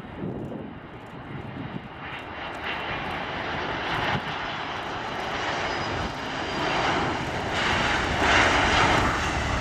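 Antonov An-225 Mriya's six turbofan engines on final approach, growing steadily louder as the huge jet passes low over the runway just before touchdown.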